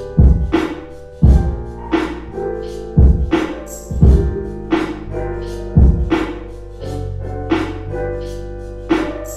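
Lo-fi hip-hop instrumental: a slow beat of kick drum and snare under sustained keyboard chords and a held bass line.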